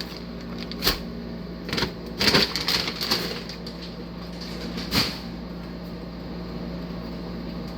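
A few short, sharp knocks and clatters of things being handled, about a second in, around two and a half seconds in, and again near five seconds, over a steady low hum.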